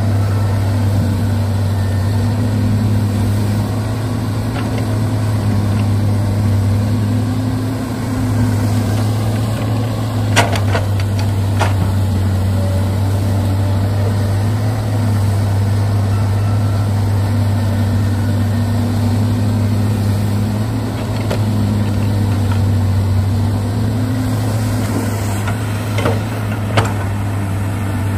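An engine running steadily, with a few sharp knocks: two about ten seconds in and one near the end.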